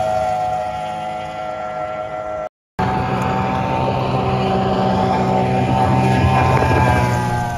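Speedboat outboard engines at high revs: the first engine's pitch eases slightly downward as the boat passes, then a brief dropout at a cut about two and a half seconds in, and another outboard runs steadily at high revs.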